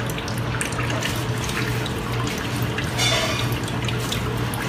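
Water dripping and trickling over a steady low hum, with a brief rubbing sound about three seconds in as a paper towel wipes the wet plastic blue bowl.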